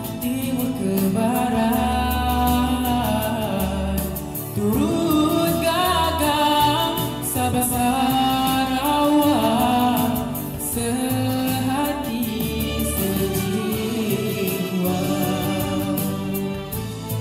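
Singing with instrumental accompaniment: a sung melody over a backing track.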